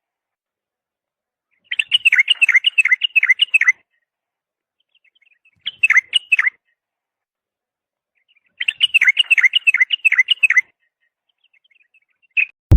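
A songbird singing in phrases: quick runs of clear down-slurred whistled notes, about four a second. Two long phrases of about two seconds and one short one are separated by silences of a couple of seconds.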